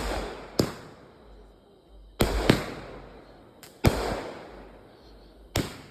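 A 36-shot consumer firework cake firing: a string of sharp, loud bangs at uneven intervals, some in quick pairs, each trailing off in a decaying rumble.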